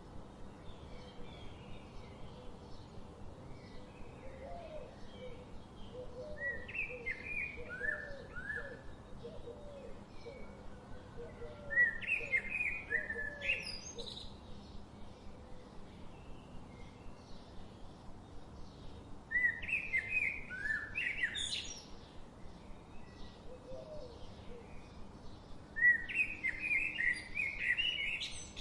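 Small pet parrots chirping in four louder bursts of quick, high chirps, over a steady patter of softer chirps from other birds.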